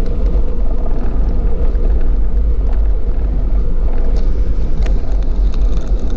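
A Jeep driving on a gravel road, a steady low rumble of engine and tyres. A few light ticks come in over the last couple of seconds.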